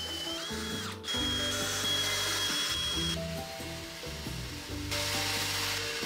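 Cordless drill driving pocket-hole screws into pine 2x6 boards, its motor whining in bursts that slow as a screw seats and then run again. Near the end, a shop vacuum hisses as it cleans up the wood chips.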